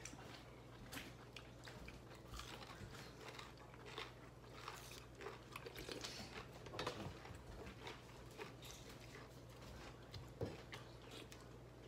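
Faint chewing and biting of people eating food with their fingers, with scattered small clicks over a steady low hum.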